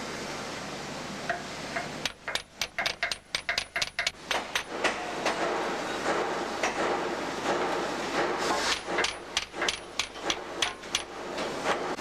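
Hammer blows on steel during fitting of a steam locomotive's driving rods: two runs of quick, sharp strikes at about four or five a second, the first starting about two seconds in and the second near the end, over a steady workshop hum.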